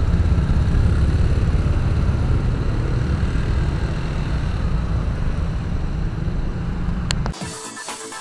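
Engines of a crowd of motorcycles and scooters running and pulling away together over a level crossing, a dense low rumble. About seven seconds in, a click and the traffic sound cuts off abruptly, replaced by electronic music.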